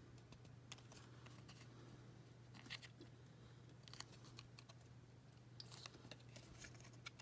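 Near silence with a few faint, scattered plastic clicks and taps: the small snap-together pieces of a miniature toy bookshelf being handled and fitted by hand, over a steady low hum.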